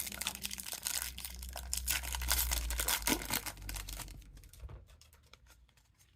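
Foil wrapper of a trading-card pack crinkling and tearing, with cards rustling as they are handled. It stops about four and a half seconds in.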